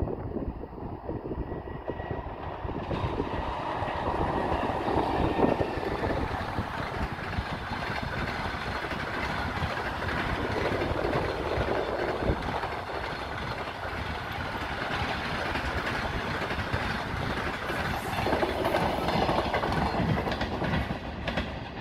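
A passenger train hauled by an EP20 electric locomotive rolling past in a steady rumble, its wheels clattering over the rails.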